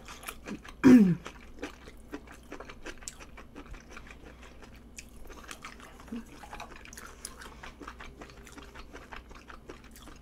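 A person chewing a mouthful of food close to the microphone, with many small wet mouth clicks. About a second in comes one short vocal sound that falls in pitch.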